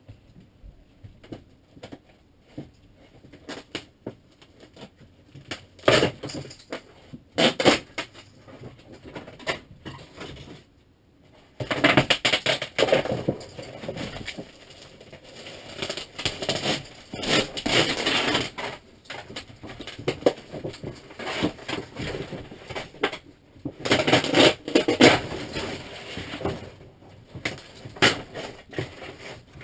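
Thin paperboard ceiling panel of a motorhome being pulled and torn down by hand: irregular cracking, tearing, scraping and clattering. It comes in loud spells, heaviest about six, twelve to nineteen, and twenty-four seconds in.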